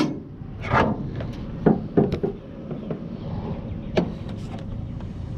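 Steady low rumble of a running vehicle, with several sharp knocks and clunks scattered through it.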